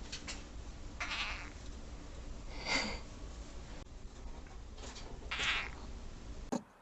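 A cat giving several short calls, a second or two apart, with a steady low hum beneath; the sound changes abruptly near the end.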